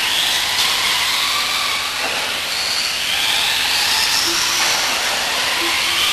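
Electric RC off-road buggies racing, their motors and gearing whining with a pitch that rises and falls as they accelerate and slow through the corners, over a steady hiss.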